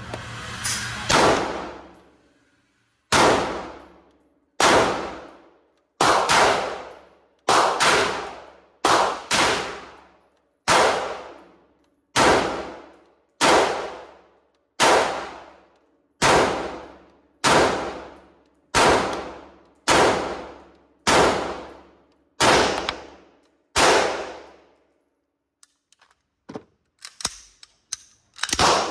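Smith & Wesson MP-15 Sport II AR-15 rifle firing .223 55-grain FMJ rounds semi-automatically in an indoor range: about twenty shots, roughly one every second and a half, each with a short ringing echo off the range walls. The shooting stops a few seconds before the end, with a few light clicks, then one more loud bang near the end.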